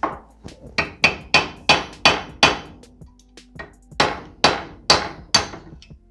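A hammer tapping a metal punch to drive a bearing out of a 1987 Honda TRX250R's oven-heated aluminium crankcase, the heat letting the bearing come out easily. Two quick runs of sharp, ringing metallic taps, about three a second, with a short pause a little after halfway.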